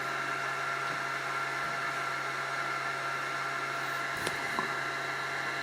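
Steady whirring hum with a constant high whine, the cooling fan of a 10-watt laser running. A couple of faint clicks come about four seconds in.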